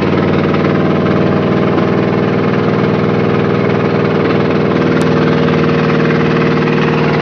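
Chevrolet truck engine with an HEI distributor idling steadily, heard from inside the cab.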